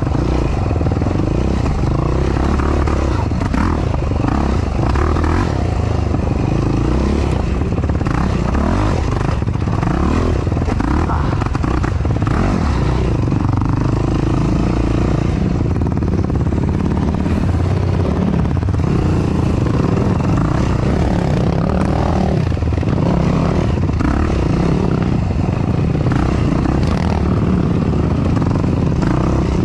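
Yamaha YFZ450R quad's single-cylinder four-stroke engine running hard at race pace, its pitch rising and falling as the throttle is worked.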